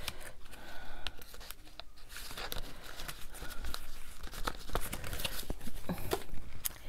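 Paper and small craft pieces being handled: rustling and crinkling, broken by many small ticks and taps.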